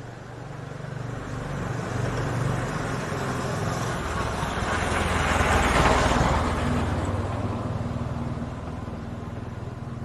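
A motor vehicle passing by on a road: its engine and tyre noise grow louder to a peak about six seconds in, then fade away.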